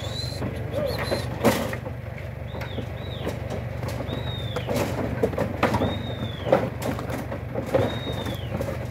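Cattle coming off a truck down a wooden unloading chute, their hooves knocking on the boards now and then, over the steady low hum of an idling truck engine. A bird gives a short high call about six times.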